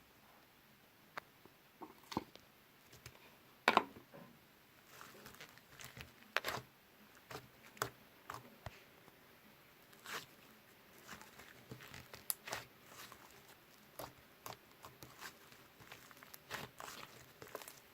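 Slime being squeezed and poked by hand, giving irregular sticky clicks, pops and short crackles.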